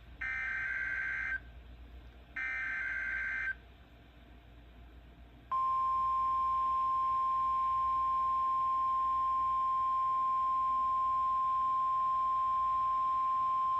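Emergency Alert System weather alert: two bursts of SAME header data, each a harsh digital warble of about a second, then, after a short gap about five seconds in, the National Weather Service's single steady warning alarm tone, announcing a severe thunderstorm warning.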